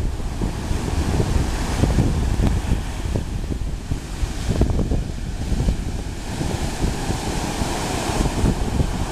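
Atlantic surf breaking and washing up the beach, its hiss swelling and fading a few times, with wind buffeting the microphone in a steady low rumble.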